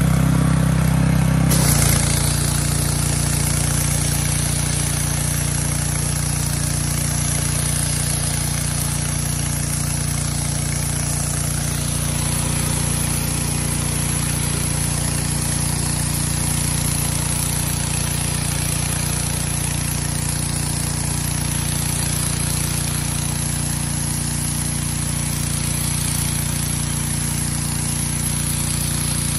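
Pressure washer running steadily: a constant engine drone under the hiss of the water jet blasting grime off concrete.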